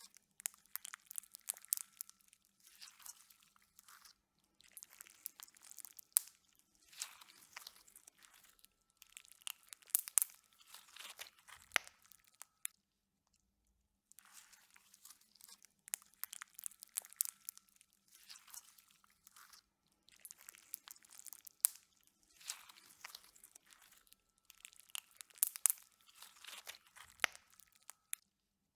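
Slime being squished and worked, giving bursts of crackly clicks and pops every second or two, with a pause of about a second near the middle.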